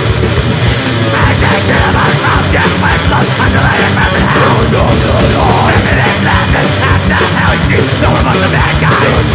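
Blackened thrash/death metal: distorted guitars, bass and fast drumming, played loud and dense without a break.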